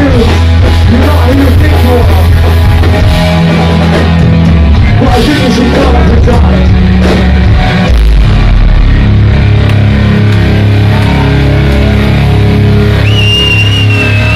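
Live hardcore punk band playing loud: distorted electric guitars, bass and drums, with shouted vocals in the first half. A high held tone comes in near the end.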